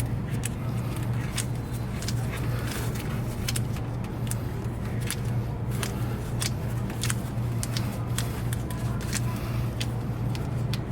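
Irregular light metallic clicks and taps of screws and sheet-metal parts being handled while a vending machine's cooling deck is screwed back into place, over a steady low hum.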